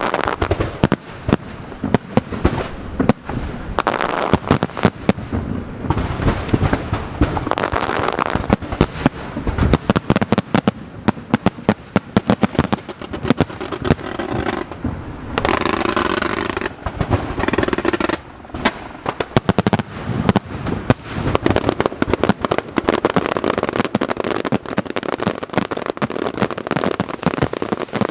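Aerial fireworks display going off as a dense, continuous barrage of sharp bangs, many a second, easing briefly about halfway through.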